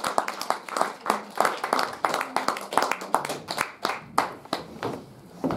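A small audience clapping, with separate claps heard, thinning out and stopping about four and a half seconds in.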